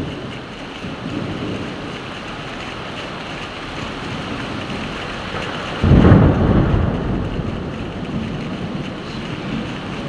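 Steady heavy rain, with a sudden loud thunderclap about six seconds in that rumbles low and dies away over a couple of seconds.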